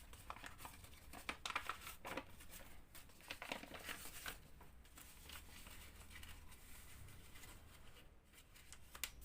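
Faint, irregular rustling and crinkling of a sheet of origami paper as it is folded, pulled and creased by hand.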